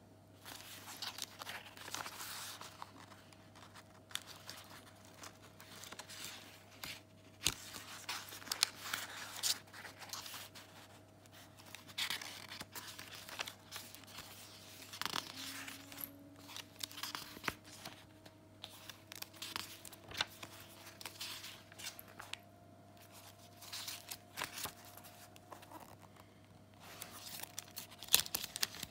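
Paper and card pages of a handmade junk journal being turned and handled, rustling and crinkling in irregular bursts with sharp little clicks.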